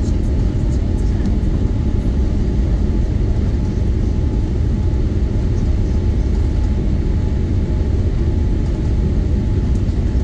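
Steady, loud cabin noise of a Boeing 787-8 Dreamliner accelerating along the runway on its takeoff roll: a deep, even rumble of the engines at takeoff power and the wheels on the runway.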